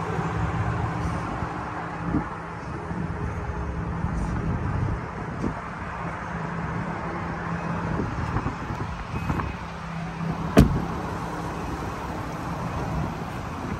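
A vehicle engine idling steadily with a low, even hum. A single sharp click comes about ten and a half seconds in.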